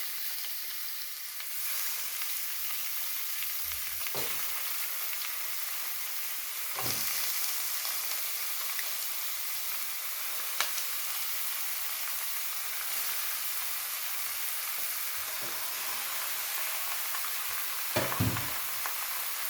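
Large pieces of lamb searing in hot ghee in a pot over high heat: a steady hissing sizzle, a little louder after about a second and a half, with a few scattered knocks against the pot.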